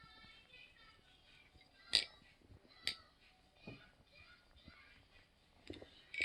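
Metal clicks of a Zenith replicant butterfly knife (balisong) as its handles are swung and flipped: two sharp clicks about two and three seconds in, then fainter ones later. Faint background music or voices sit under them.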